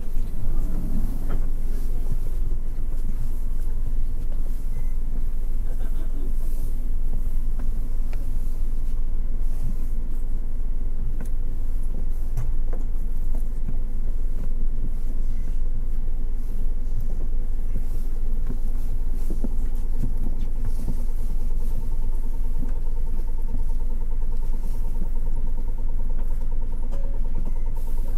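Interior sound of a Toei city bus running: a steady low engine and road rumble with scattered small knocks and rattles. A faint steady tone joins about two thirds of the way in.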